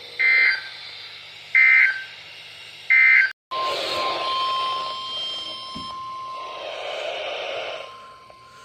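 Three short bursts of warbling EAS/SAME digital data tones, about a second and a half apart: the end-of-message signal of a weather radio alert. After a brief cut, a steady single-pitch weather radio alert tone sounds over radio hiss, fading lower near the end.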